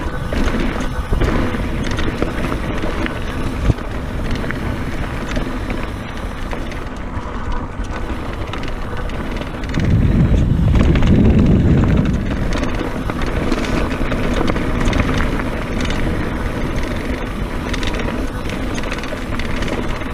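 Scott Genius mountain bike ridden fast on dirt singletrack: wind buffeting the bike-mounted camera's microphone over tyre noise and the rattle of the bike on rough ground. A sharp knock comes about four seconds in, and the wind rumble grows louder for a couple of seconds about halfway through.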